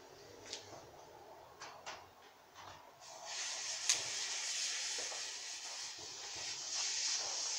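A few faint clicks, then from about three seconds in a lit firework fuse fizzing steadily, with one sharp crackle soon after it catches.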